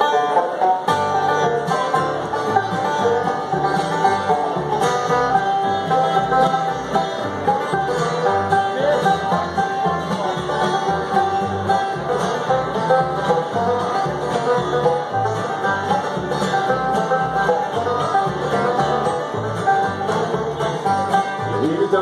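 Bluegrass band playing a song's instrumental intro: banjo, fiddle, acoustic guitar and upright bass together, with the bass coming in on a steady pulse about a second in.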